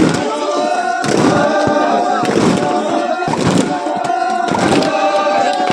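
A group of voices singing or chanting together in chorus, in repeated phrases with long held notes.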